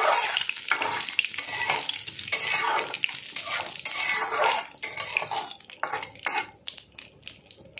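Steel spatula stirring and scraping against a metal kadai while a tempering of dried red chillies, cumin, bay leaf and curry leaves sizzles in hot oil. The sizzle and scraping ease off in the second half, leaving quieter, separate clicks of the spatula.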